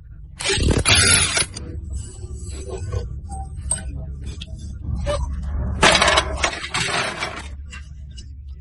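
Metallic clinking and scraping in two loud bursts over a steady low hum.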